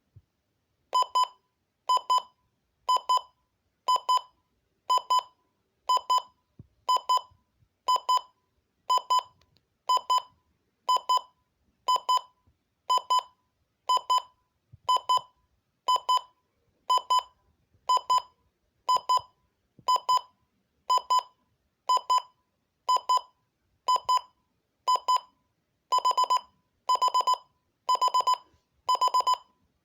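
Midland weather radio's alarm-clock alarm going off: a shrill electronic beep repeating about once a second, each beep a quick fluttering pulse. Near the end the beeps come in quicker clusters.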